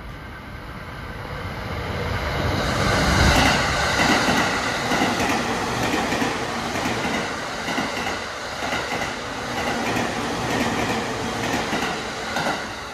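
E231 series 1000 subseries electric multiple unit passing through at speed: its noise builds as it approaches, is loudest about three seconds in, then runs on as a rhythmic clatter of wheels striking the rail joints car after car, dropping away near the end as the last car passes.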